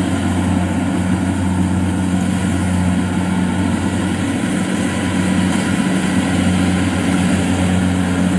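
Kubota DC70 Plus combine harvester running steadily while cutting and threshing rice: a constant diesel engine hum with a wide hiss from the working machinery.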